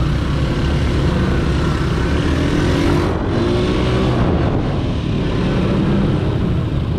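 Motorcycle engine running while riding along a street, with wind rushing over the microphone; the engine pitch rises a little between about two and four seconds in.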